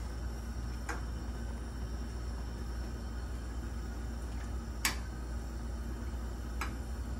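A wooden spoon stirring pasta in a stainless steel pot, knocking lightly against the pot a few times, loudest about five seconds in, over a steady low hum.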